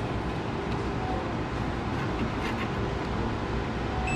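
Steady machine hum in a print shop, with a few light ticks of label liner and roll being handled on a label finisher. A short electronic beep comes right at the end as a button on the finisher's control panel is pressed.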